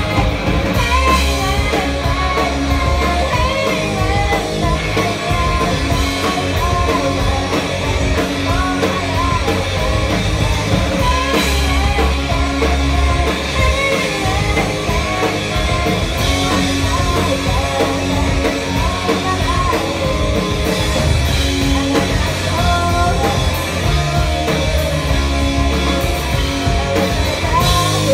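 Live rock band playing a song: guitars, bass and drum kit, with a singer's voice over them.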